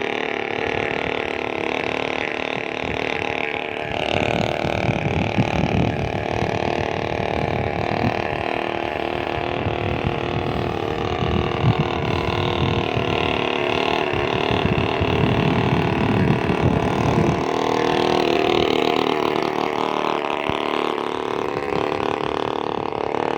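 Small brush-cutter engine driving an RC boat, running continuously and revving up and down. The engine is louder and rougher from about 4 s to about 17 s, then drops back.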